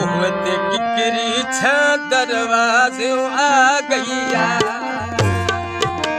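Harmonium and tabla accompanying a man singing a Punjabi folk song. The singer holds wavering notes in the middle, then tabla strokes come to the fore near the end, with deep bass strokes on the bayan.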